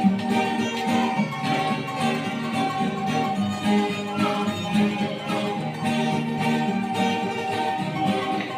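Music led by a plucked acoustic guitar, with long held notes over it.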